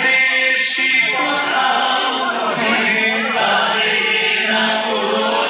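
A group of voices singing together like a choir, with music, at a steady level.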